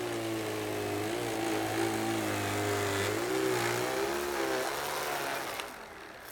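Prototype single-stage R/C snow blower running as it clears snow, its motor pitch wavering up and down under the changing load. The sound drops away sharply about five and a half seconds in.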